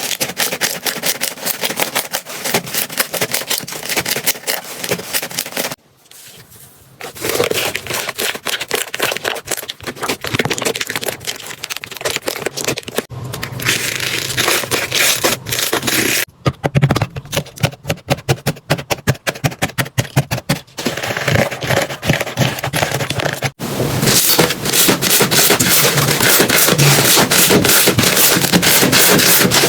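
Slime being squeezed and worked by hand, making dense crackling and popping clicks. It comes in several short segments that change suddenly, with a brief quieter gap about six seconds in.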